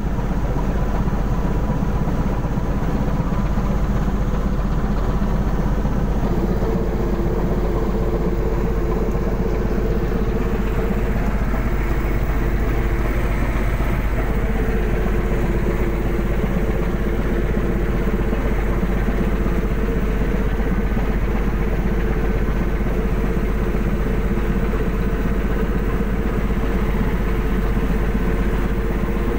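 Steady drone of engines and deck machinery on a longline fishing boat, with a low hum throughout. A higher hum joins in about six seconds in, fades briefly, and comes back near the middle.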